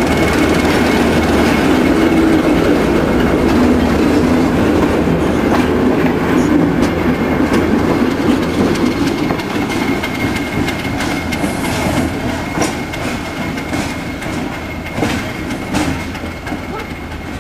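Two ALCO S2 diesel switcher locomotives running past at close range. Their engine rumble is loudest at first and fades as they move away, with a steady high tone over it and sharp clicks of wheels over rail joints in the second half.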